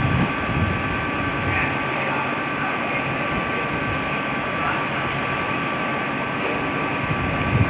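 Class 221 Super Voyager diesel-electric train running slowly into a station platform: a steady drone from its underfloor diesel engines, with a thin steady whine above it.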